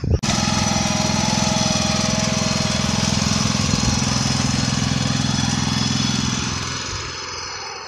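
A steady mechanical running noise with a fast rattle. It starts abruptly and fades away near the end.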